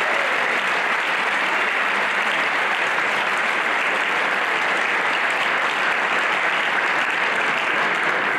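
Audience applauding steadily in a sustained round of clapping.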